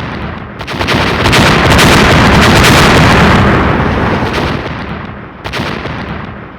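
Fireworks going off in a rapid barrage: a dense run of bangs and crackling. It swells to its loudest about two seconds in, dies down, and then a fresh volley comes near the end.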